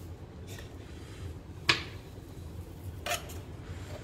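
Kitchen knives cutting fresh coconut meat on a wooden chopping board, with two sharp knocks of a blade on the board, the louder one under two seconds in and a weaker one about three seconds in, over a low steady hum.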